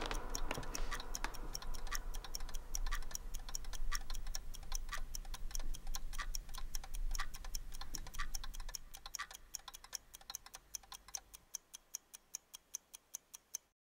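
A clock ticking steadily in quick, even ticks, over a low background that fades away about ten seconds in; the ticking then carries on alone and stops suddenly near the end.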